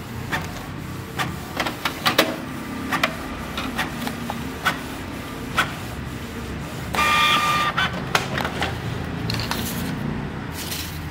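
Canon Pixma G2160 inkjet printer printing a nozzle check page: a steady motor hum with scattered mechanical clicks, and a louder whirring motor stretch of under a second about seven seconds in.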